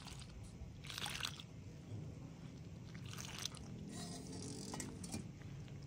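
Hand working water into atta (wheat flour) in a clay bowl. The wet flour squelches and crunches in a few short bursts as the dough starts to come together.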